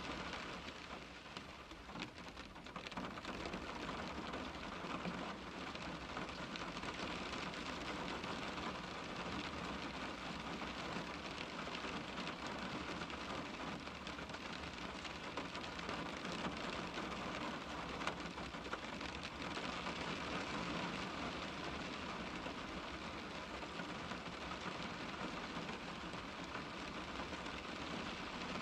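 Steady rain pattering on a car's window glass, a dense even hiss of drops with fine ticks throughout, dipping briefly near the start.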